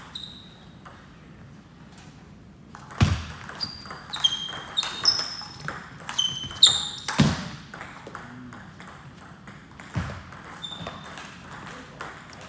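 Table tennis rally: the celluloid ball clicks quickly back and forth off the bats and the table for about four seconds, many hits ringing briefly. A few heavier thumps fall among them, and single ball bounces come before and after the rally.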